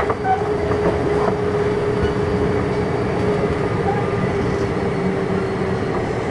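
Running sound of a Kintetsu 6200 series electric commuter train under way. Steady rumble of wheels on rail carries a whine from the traction drive that sinks slightly in pitch.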